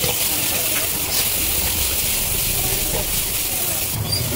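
Shredded cabbage and onions sizzling in a hot pan of oil while a steel ladle stirs them, a steady hiss with a few light knocks of the ladle.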